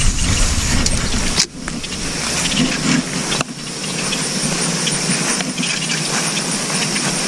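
Steady outdoor hiss on a body-worn camera's microphone, with a low rumble in the first second and a half and two sharp clicks, about a second and a half and three and a half seconds in.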